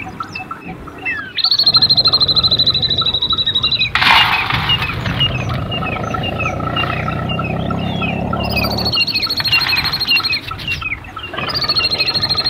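Birds chirping, with a loud, high, rapidly pulsing drone that starts and stops three times, and a low rumble underneath for much of the time.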